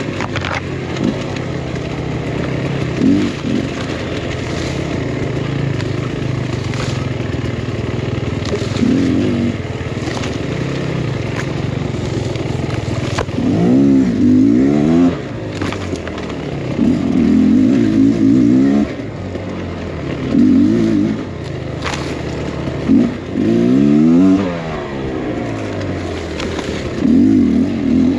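Beta X-Trainer 300 two-stroke dirt bike engine running on a trail ride, revving up and dropping back in bursts every couple of seconds as the throttle is worked. A few sharp knocks and scrapes sound in between.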